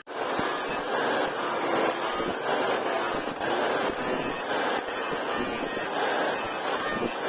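A power tool running steadily with a dense grinding noise as it works steel.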